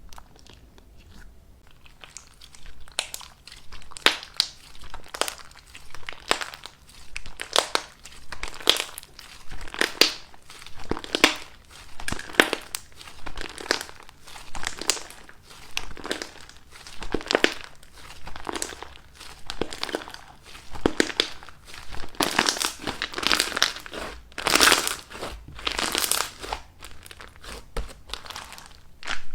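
Slime being squeezed and pressed by hand, each press giving a short crinkly, crunchy burst, one to two a second. It starts quietly and grows louder near the end.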